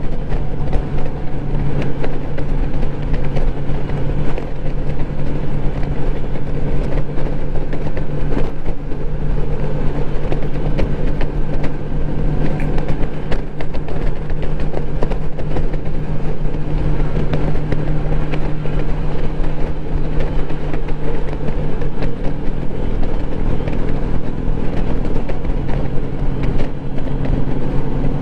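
Honda Gold Wing touring motorcycle cruising at steady highway speed: a continuous engine drone mixed with heavy wind rush over the microphone.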